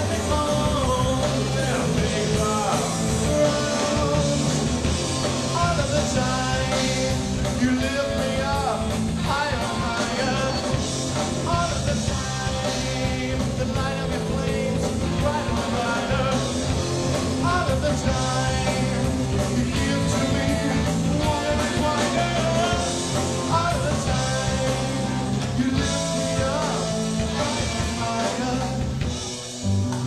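Live rock band playing a song: electric guitars, bass and drum kit, with a bending lead melody line over them. The band drops out briefly just before the end.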